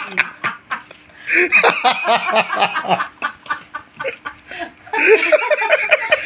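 A boy shrieking with laughter in two loud bursts of quick, high cackling, about a second in and again near the end, while his foot is held and worked.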